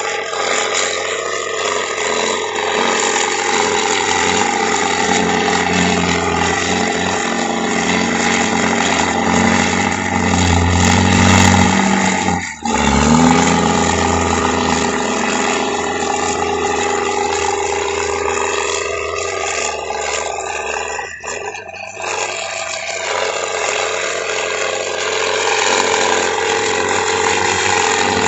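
Komatsu heavy machine's diesel engine running, its pitch rising and falling as the revs change. It drops out briefly about twelve seconds in and again around twenty-one seconds.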